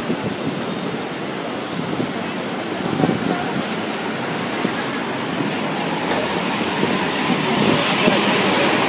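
City street traffic: a steady mix of engines and tyres, getting louder and hissier near the end as a bus passes close by.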